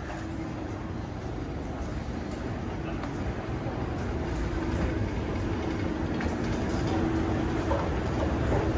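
A vehicle engine's low rumble with a steady hum, growing gradually louder.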